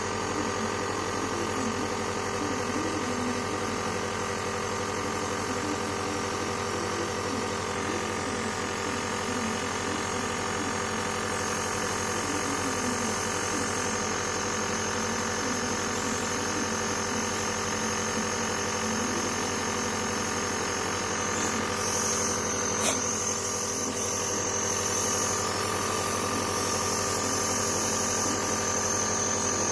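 Compressor nebulizer motor running with a steady hum made of several fixed tones. A higher hiss comes in about two-thirds of the way through, with a single click soon after.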